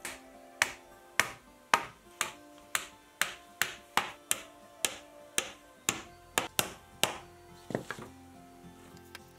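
Hammer blows on wood, about two a second in an uneven rhythm for some seven seconds, each a sharp knock with a short ring, over background music.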